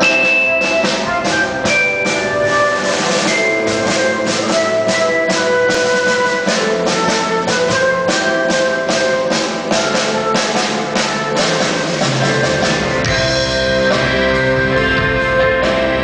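Live band playing an instrumental passage: a steady drum beat under a flute melody, with bass and fuller accompaniment coming in about thirteen seconds in.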